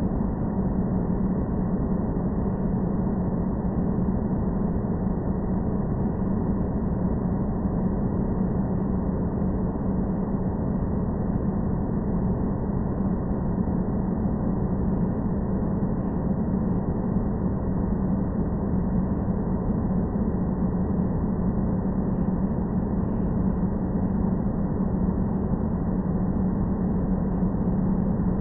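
Steady airplane ambient noise: an unchanging drone with a strong low hum.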